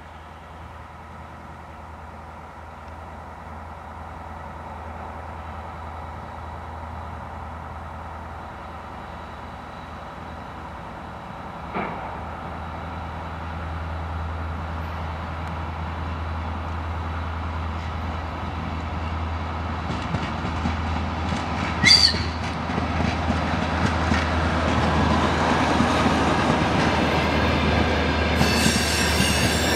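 DR1A diesel multiple unit approaching and passing: its diesel engine runs with a steady low drone that grows steadily louder. A brief sharp metallic sound comes about two-thirds of the way through, and near the end a high wheel squeal joins the running noise as the cars go by close.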